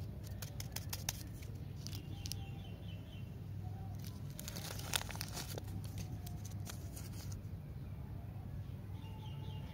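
Lollipop wrapper crinkling and tearing as it is unwrapped by hand, in scattered sharp crackles with a dense burst about five seconds in, over a steady low hum.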